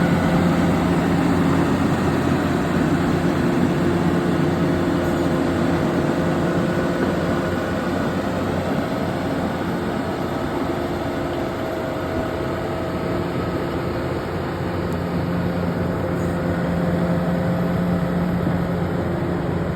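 Komatsu D68ESS crawler bulldozer's diesel engine running steadily as a continuous drone, dipping a little in level midway and rising again near the end.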